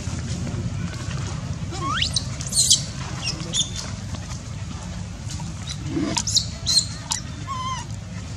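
Short high-pitched squeaks and chirps, with one quick rising squeal about two seconds in and another cluster around six to seven seconds, plausibly from a distressed baby macaque. They sit over a steady low background rumble.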